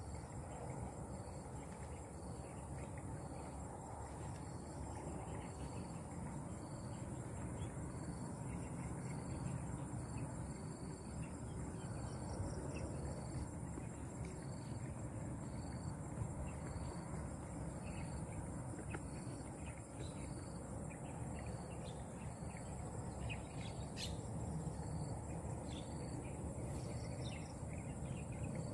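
Insect chorus: a steady high-pitched drone, with a shorter chirp repeating about once a second, over a low, even background noise.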